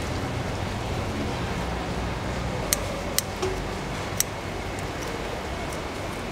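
Kitchen scissors snipping through a mantis shrimp's shell: a few sharp clicks between about three and four seconds in, over a steady background noise.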